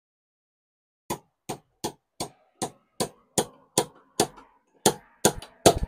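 Glue-tab dent puller working on a car tailgate: a regular run of about thirteen sharp clicks, roughly two and a half a second, starting about a second in and growing louder toward the end. The pull is not shifting the dent.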